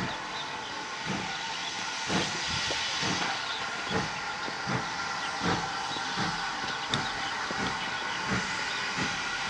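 GWR 4500 class small prairie 2-6-2 tank locomotive 4555 pulling away slowly under steam: steady exhaust beats at about one and a half a second over a continuous hiss of steam.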